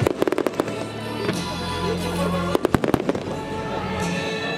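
Fireworks bursting in two quick volleys of sharp bangs and crackles, one at the start and another about two and a half seconds in, with music playing steadily underneath.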